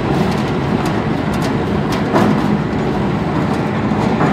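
Biomass briquette machine running under load, pressing straw through its ring die: a loud, steady mechanical rumble with a low hum, broken by a few sharp knocks.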